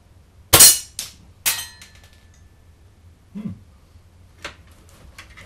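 L96 spring airsoft sniper rifle firing a sharp shot, followed by BB impacts clinking off the steel biathlon target with a brief metallic ring. At 1.9 joules the shot is too weak to knock the target plate down. A few soft handling clicks follow near the end.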